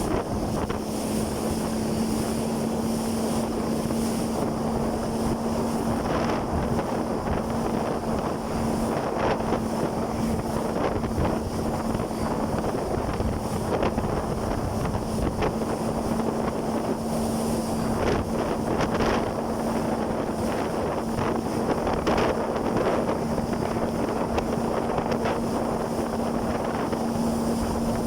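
Jet ski engine running at a steady speed, a constant hum under heavy wind noise on the microphone, with water rushing past.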